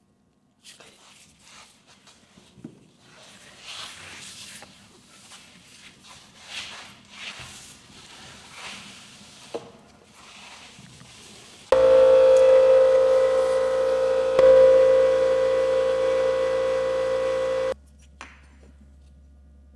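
Irregular scraping and rubbing as material is handled, then an electric power tool switches on about twelve seconds in. It runs with a loud, steady whine for about six seconds and cuts off abruptly.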